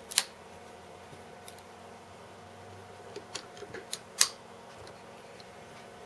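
Sharp clicks and taps of hard plastic and metal as a USB wall power adapter is set between the jaws of a small bench vise and the vise is worked. The loudest click comes just after the start and another about four seconds in, with a cluster of lighter ticks just before it.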